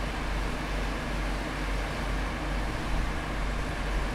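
KiHa 40-series diesel railcar idling at a standstill: a steady low engine rumble.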